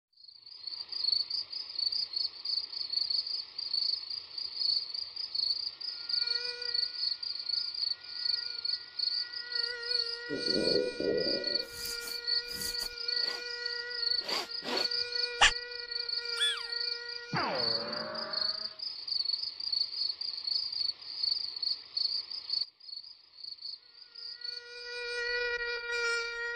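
Crickets chirping steadily at a high pitch, with a mosquito's whining buzz joining about six seconds in and breaking off briefly near the end. A few sharp clicks and a short falling sweep come midway.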